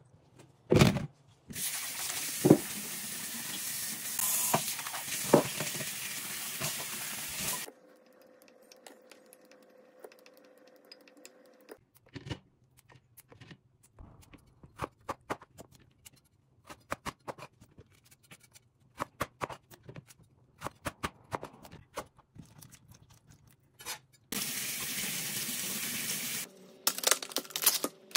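Kitchen tap running into a stainless steel sink and plastic colander for about six seconds near the start and again for about two seconds near the end. In between come scattered light clicks and knocks of handling produce and kitchenware on a counter.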